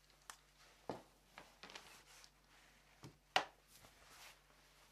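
Quiet handling of a pair of headphones on a plywood workbench: a few light clicks and knocks, the sharpest a little over three seconds in, with soft rustling between.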